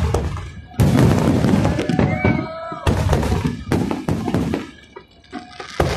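Aerial fireworks shells bursting overhead: four sharp bangs, about a second in, near three seconds, just before four seconds and near the end, with a low rumble between them.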